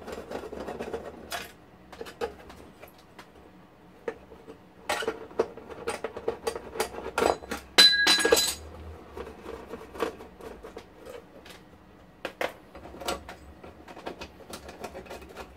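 Small metal clicks and clinks of a screwdriver and screws working on the metal chassis of an HP 5328A frequency counter during disassembly. They come at irregular moments, busiest around the middle. A short ringing metal clink just before eight seconds in is the loudest.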